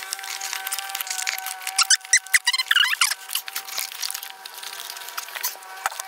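Scattered clicks and rattles of hands working a cable and parts through a Jeep's fender into the engine bay, with a brief squeaky rubbing sound in the middle. A steady hum of several tones runs underneath.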